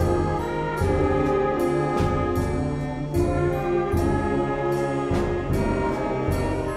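Student concert band playing: trombones and tuba hold sustained brass chords with saxophones, and percussion strokes land roughly once a second.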